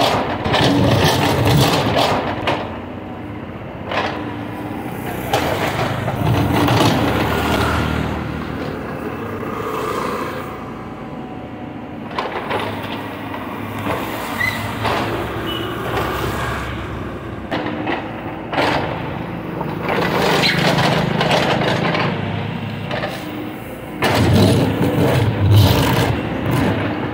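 Backhoe loader's diesel engine running and working under load, its level rising and falling as the bucket digs soil from a trench and swings it over to dump into a tipper truck, with scraping and knocks from the bucket in the earth.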